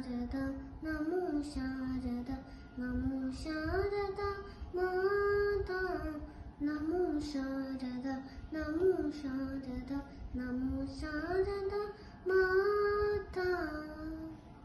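A young boy singing solo, unaccompanied, in sustained phrases with the voice sliding between notes.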